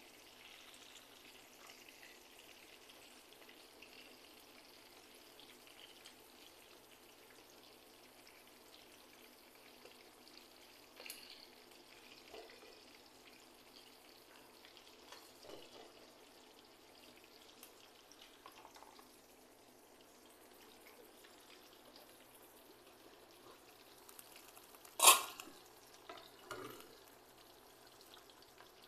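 Whole fish frying in oil in a pan, a faint steady sizzle with a few light knocks. One loud sharp knock about 25 seconds in, followed by a couple of smaller ones.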